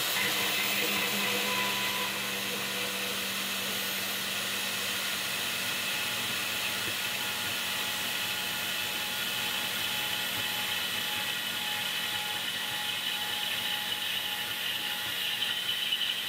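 Vevor portable band saw running under load, its blade cutting through a steel bar in a slow cold cut. It makes a steady motor whine with a grinding hiss from the blade, and turns a little louder and sharper near the end.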